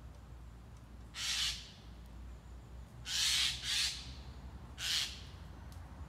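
Eurasian magpie giving four harsh, rasping calls: one, then a close pair about two seconds later, then one more.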